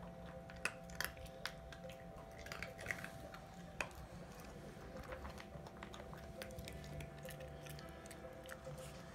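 Small dog eating dry kibble: scattered sharp crunches and clicks, most of them in the first four seconds and sparser afterwards.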